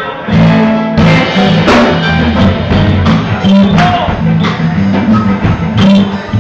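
Live band with a harmonica played into a hand-held microphone over electric guitars, a bass line and a drum kit.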